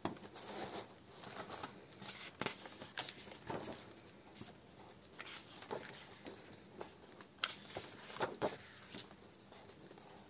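Sheets of a scrapbooking paper pad being turned one after another: paper rustling, with short sharp snaps as pages flip, a few louder ones in the second half.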